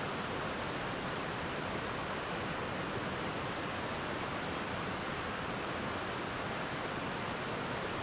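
Water rushing over a small waterfall and rapids: a steady, even rush with no breaks or changes.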